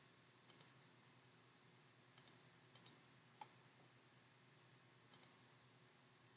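Computer mouse button clicks over quiet room tone: four quick double clicks and one single click.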